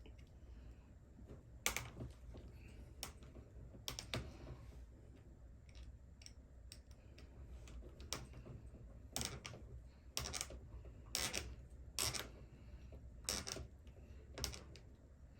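Scattered sharp clicks and taps of small hand tools and plastic and metal RC car parts being handled, about ten in all, coming roughly once a second in the second half.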